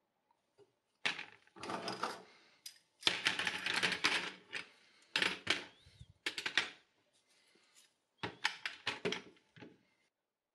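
Disassembled metal binocular parts (barrels, rings, eyepieces) being put into a plastic tray, clinking and knocking against each other and the tray in several short bursts with brief pauses between.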